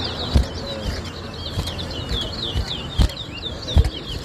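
Caged towa-towa seed finch singing a rapid string of short, high, slurred whistled notes, the song that is counted in a bird-whistling match. Three dull thumps stand out: one early and two near the end.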